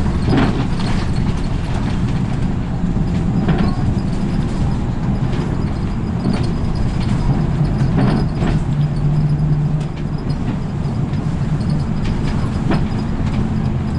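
Route bus driving along, heard from inside the cabin at the front: steady engine and road rumble with a few knocks and rattles, and a brief steady hum about eight seconds in.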